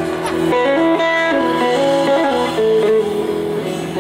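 Live electric guitars playing a slow, melodic intro line of held notes over a sustained chord, with a few short sliding notes, and no drum beat.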